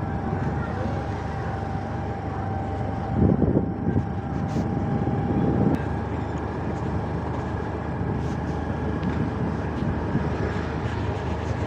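A two-wheeler's engine running at a steady road speed, heard from on the bike, with a constant thin whine over low road and wind rumble. Two louder low rumbles come about three and five and a half seconds in.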